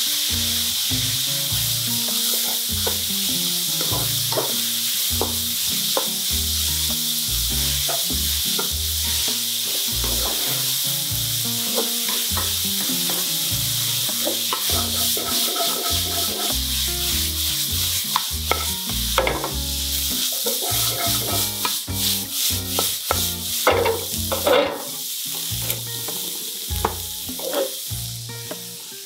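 Diced dried radish sizzling in hot oil in a non-stick wok while a wooden spatula stirs and scrapes it, with short knocks of the spatula against the pan. The stirring strokes grow sharper in the second half, and the sound gets quieter near the end.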